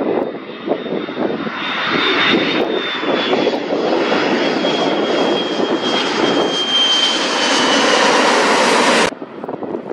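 Boeing 727 freighter's three Pratt & Whitney JT8D turbofan engines on a low landing approach, passing close overhead. The engine noise grows louder, with a high whine that slowly falls in pitch as the jet goes by, then cuts off abruptly about nine seconds in.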